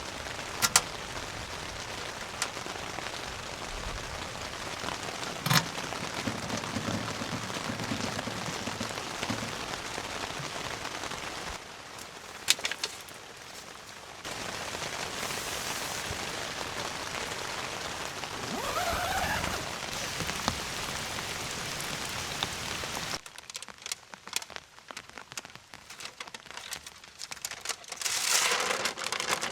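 Steady rain falling on a surface, with a few sharp clicks. It changes abruptly a few times, and for the last several seconds it turns to scattered drips and crackles.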